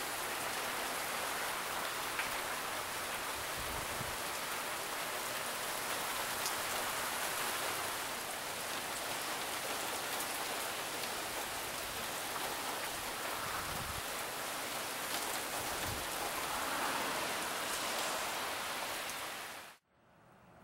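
Steady rain from a tropical-storm thunderstorm, falling and splashing on surfaces, with a few sharper drop ticks; it stops abruptly near the end.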